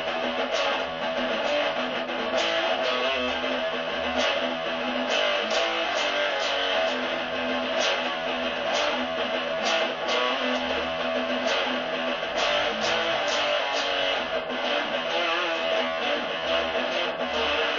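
Guitar being strummed in a steady rhythm, chords ringing on between the strokes.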